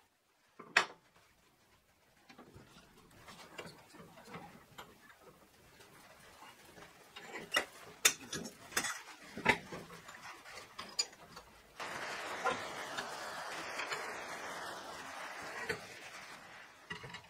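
Sharp metal clinks and knocks as 12 mm steel rebar and a steel bending bar are handled in a cast-iron bench vise. About twelve seconds in, a steady rasping noise runs for around five seconds before fading.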